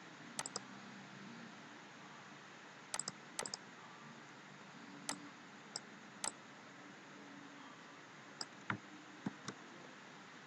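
Scattered sharp clicks from computer input, a mouse and keys being pressed, some coming in quick pairs, over a faint steady room hiss.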